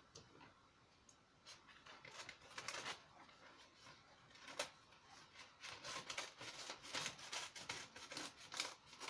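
Sheets of coloured paper rustling as they are leafed through and handled, quiet and sparse at first, then a denser run of quick crisp rustles in the second half.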